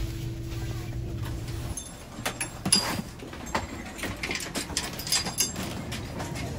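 Steady low hum inside the stopped train car, which cuts out a little under two seconds in. Then come irregular clicks and knocks of passengers and luggage moving through the car to the open door.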